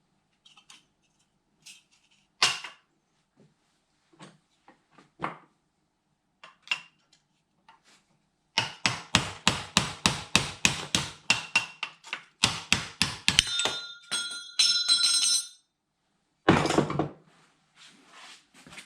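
Hammer striking metal in a fast run of blows about four a second, then more strikes with metal ringing, and one heavy knock near the end, amid scattered small clicks.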